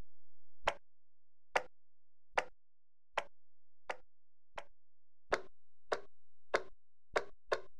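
Cartoon footstep sound effect: a run of about eleven short, sharp steps, evenly paced at first, then quickening toward the end as the character walks.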